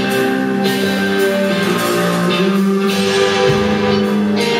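A band playing a song live, with sustained guitar chords that change every second or two.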